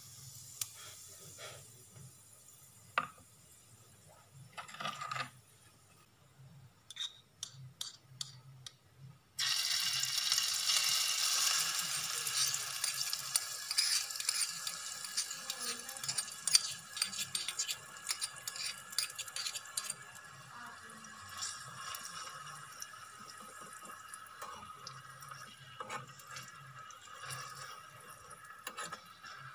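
Whole spice seeds dropped into a tiny pan of hot oil, with a few light spoon taps, then about nine seconds in a loud sizzle starts suddenly as spice-coated chicken pieces fry in the oil. The sizzle eases to a steady crackling hiss while a spoon stirs the pan.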